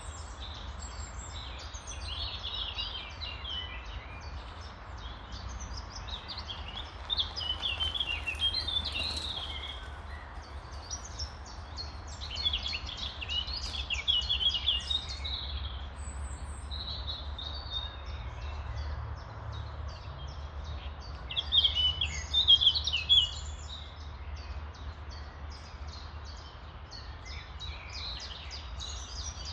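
Songbirds singing, a continuous chatter of rapid high chirps with louder song phrases coming in three times, over a steady low rumble.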